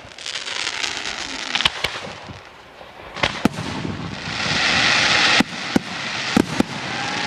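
Fireworks display going off: a run of sharp bangs and crackles, with a dense crackling swell that builds from about four seconds in and cuts off suddenly, followed by a few more sharp bangs.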